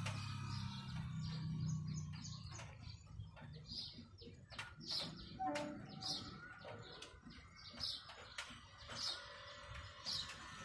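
A small bird chirping over and over, a short high chirp every second or so. A low hum is also heard and fades out over the first two seconds.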